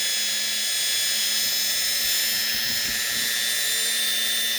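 Rotary tool with a diamond bit running steadily at low speed, a high whine with a constant hum, as it grinds a pilot hole into a citrine crystal held under water.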